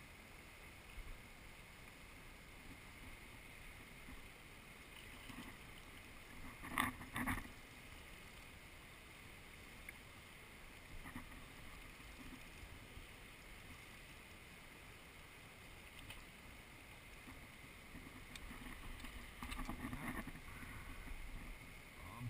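Steady rush of a river flowing over a rocky bed, with two short knocks about seven seconds in.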